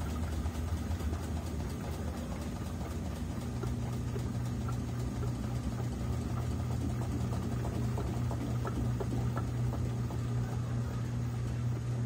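Consul 13 kg Maxi Economia (CWE13AB) top-loading washing machine running, its load turning in the basket: a steady low motor hum that grows stronger about three and a half seconds in, with faint light ticks.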